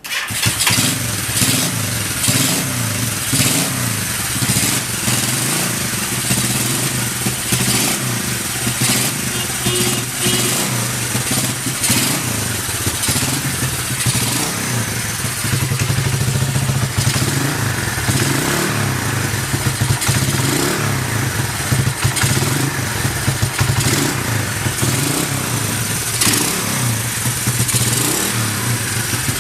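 Kawasaki Z250LTD motorcycle engine running after an electric start. It comes in abruptly at the beginning and settles into a steady idle with small, frequent swells in level. The engine is judged to idle stably with no abnormal noise.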